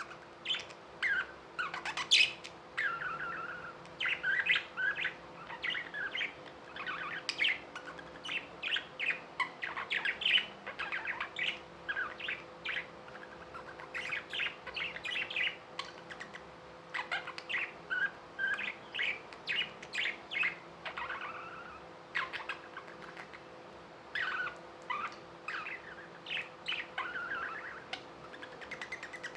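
Budgerigars chirping and warbling in a continuous string of short, quick calls.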